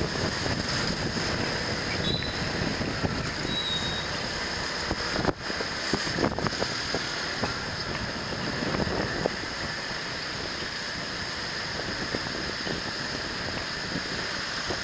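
Wind rushing over the microphone of a moving motor scooter, with the scooter's engine and street traffic running underneath.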